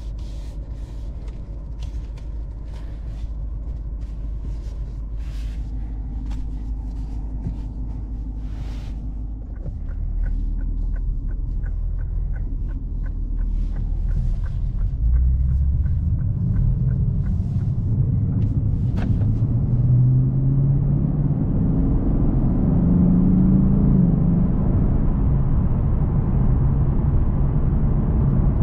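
Lexus RC F Track Edition's 5.0-litre V8 heard from inside the cabin: a low rumble that grows louder from about ten seconds in as the car picks up speed, with the engine note rising in the second half. A run of light, evenly spaced ticks, about two a second, sounds through the middle.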